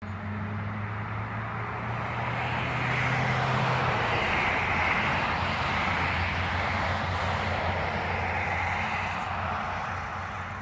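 Road traffic: a vehicle passing, its noise swelling over a few seconds and easing off, over a low steady engine hum.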